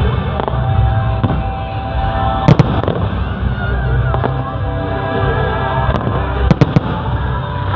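Fireworks going off: two sharp cracks close together about two and a half seconds in and a quick run of three more cracks near the end, over a continuous low rumble of bursts, with music playing along.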